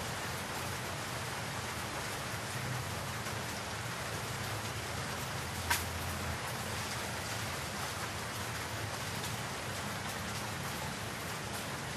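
Steady rain falling on leaves and wet ground, an even hiss, with a single sharp tap about six seconds in.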